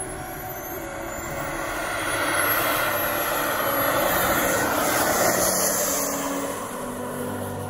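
Radio-controlled Sebart Avanti S 2.2m model jet taxiing, its engine running with a high whine that rises in pitch over the first couple of seconds. The engine grows louder toward the middle and eases off near the end.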